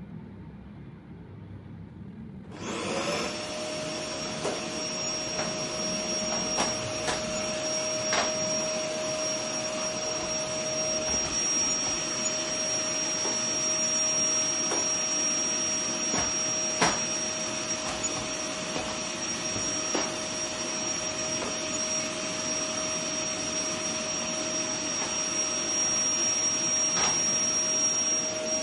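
A household appliance's electric motor switches on a couple of seconds in: its whine rises briefly, then it runs steadily with a rushing hiss and a steady high whine, with a few faint ticks.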